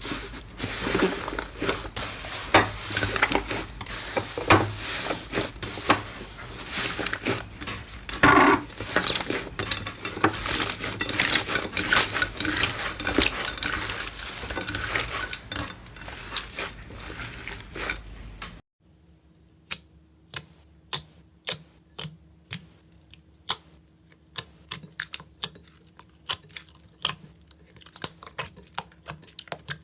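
Slime being squeezed and worked close to the microphone, a dense run of crackling, squelching clicks. About two-thirds of the way in it cuts to a quieter clip of separate sharp clicks and pops, one or two a second.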